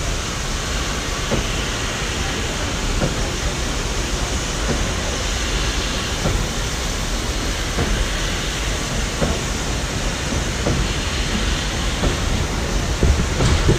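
Ol49 steam locomotive standing while it takes on water: a steady hiss over a low rumble, with a few faint knocks and a slightly louder one near the end.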